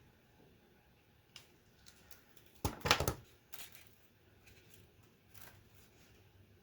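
Small plastic keyboard parts being handled on a workbench: scattered light clicks and taps, with a short burst of rattling clicks about three seconds in.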